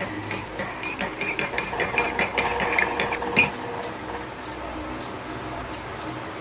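Metal slotted spatula scraping and clicking against a metal pan while stirring a wet sauce: a quick run of sharp clicks for about three and a half seconds, then only a quieter steady hiss.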